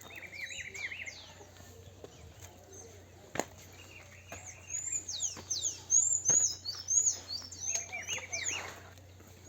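Small birds chirping, with many quick repeated notes that grow busier and louder in the second half. A few sharp clicks break in, one clearly about three and a half seconds in.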